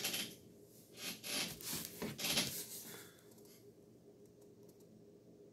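A hardcover picture book being handled and raised: paper and board rubbing and rustling, a brief rub at the start and then a few scraping rustles over about two and a half seconds, then quiet room tone.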